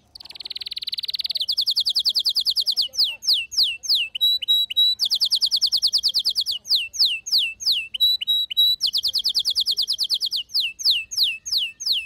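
Male canary singing a loud, fast song. It opens with a buzzy note, then cycles three times through a rapid trill, a run of slurred falling whistles and a few short even pips.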